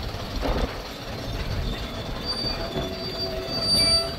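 Class 117 diesel multiple unit moving on the track, its wheels squealing against the rails over a low rumble. The squeal sets in about two seconds in as several steady pitches at once, and is loudest near the end.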